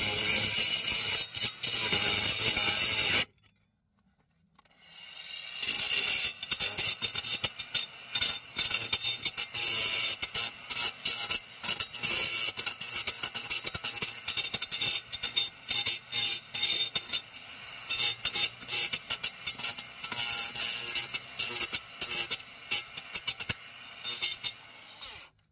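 Angle grinder with a cutting disc cutting into a flat concrete roof tile. It stops about three seconds in and runs back up a couple of seconds later, then keeps grinding unevenly until it cuts off suddenly near the end.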